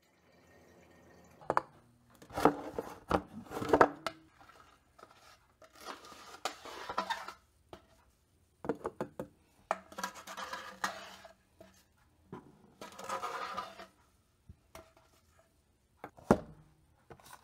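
Kitchen handling: clinks and knocks of a stainless pot and utensils, and ground coffee being spooned into a glass French press, with several scraping, rustling spells of about a second each.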